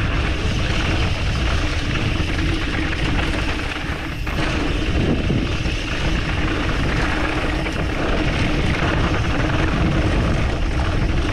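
Wind rushing over the camera microphone of a mountain bike descending a dirt trail, mixed with the bike's tyre and drivetrain rattle, steady apart from a short lull about four seconds in.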